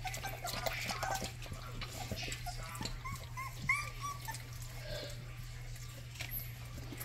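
Rottweiler puppies lapping at a water bowl with small wet clicks, and whimpering in a run of short high squeaks about three to four seconds in.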